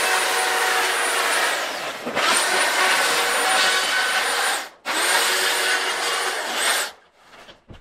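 A large sheet of paper being slit and ripped open in three long strokes of about two seconds each, with a thin high squeal running through each stroke.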